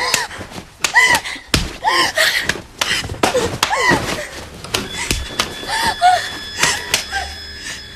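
A scuffle: sharp slaps and thuds, loudest in the first half, with short cries and gasps between them.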